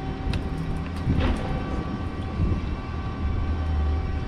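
The boat's four Mercury outboard motors running at low speed: a steady low engine drone, with a few short clicks and a brief rush of noise about a second in.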